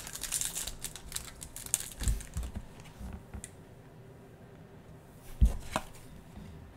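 Foil trading-card pack wrappers crinkling as they are handled. It is loudest in the first second or so, then quieter rustling with a soft knock about two seconds in and a sharp thump on the tabletop a little past five seconds.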